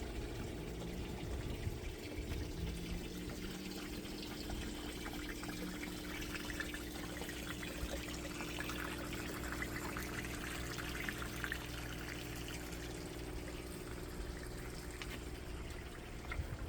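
Water pouring and trickling into a flood-and-drain grow bed as a timer-switched pump refills it, steady throughout, with a steady low hum underneath.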